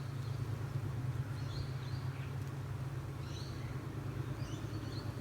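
Steady low drone of a mass of honeybees buzzing around an opened hive, with a few short bird chirps over it.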